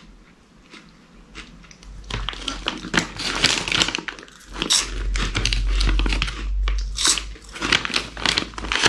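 Close-up crunching and chewing of baked pea crisps, really crunchy, with crinkling of the plastic snack bag. It is fairly quiet for about two seconds, then dense crackling bites and chews follow to the end.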